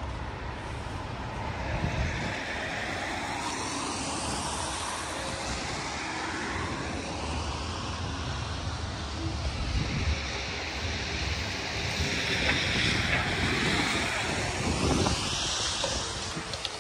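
Steady rushing noise of a vehicle passing, swelling and fading, loudest towards the end.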